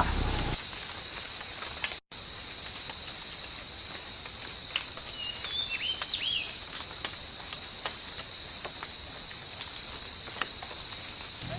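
Steady, high-pitched drone of an insect chorus in forest, with a few short bird chirps about halfway through. The sound cuts out for an instant about two seconds in.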